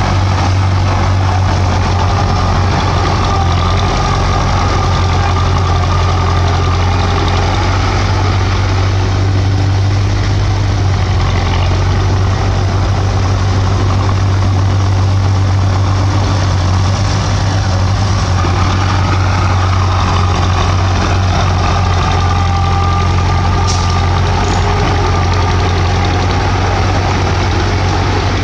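Heavy diesel engine of a bulldozer running steadily at an even, unchanging pitch.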